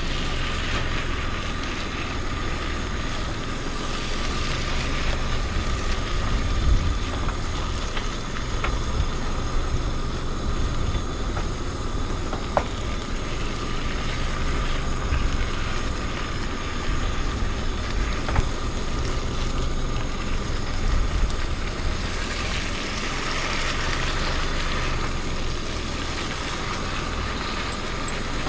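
Ground meat browning in a camp cooking pot: a steady sizzle over a low rumble, with a few light clicks and taps.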